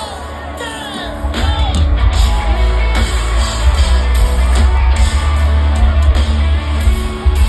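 Live red dirt country-rock band playing, amplified through a festival PA, with electric guitar; the full band comes in loud with heavy bass about a second in. Crowd whoops and singing over the music.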